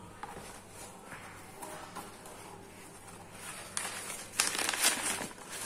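Crumpled brown kraft packing paper crinkling and rustling as hands pull it out of a cardboard shipping box: faint handling noises at first, then loud crinkling from a little before four seconds in.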